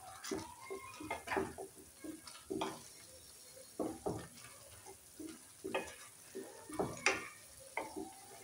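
Wooden spatula stirring and scraping through grated raw potato simmering in spiced water in a metal kadai, in irregular strokes about one or two a second, with the bubbling of the boiling mixture underneath.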